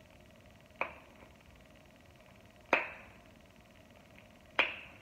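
Three sharp clicks a little under two seconds apart, each with a short ring, over a faint steady room background.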